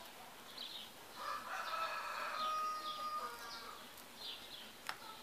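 A rooster crowing once, a call of about two seconds that ends on a held note, with small birds chirping throughout and a light click near the end.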